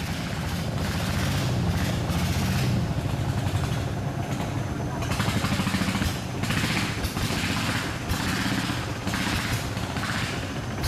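A heavy engine running steadily, with a low rumble and repeated swells of hiss above it.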